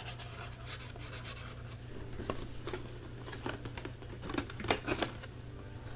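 Trading cards and their packaging being handled: scratchy rustling and small clicks, with a few sharper clicks about four and a half to five seconds in, over a steady low hum.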